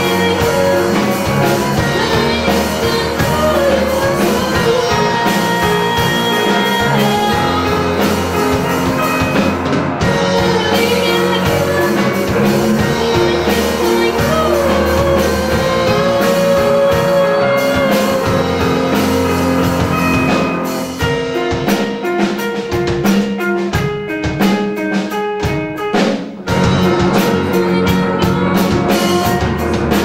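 Live rock band: a girl singing lead over electric guitars and a drum kit. About two-thirds of the way through the voice drops out for a few seconds of choppy, stop-start playing, then the full band comes back in.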